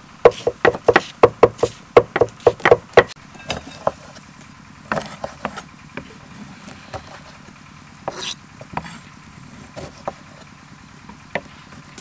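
Cleavers chopping on a wooden chopping block in a quick run of knocks, about three a second, which stop about three seconds in. After that a cleaver slices small limes on the block, making a few soft cuts and scrapes over a faint steady low hum.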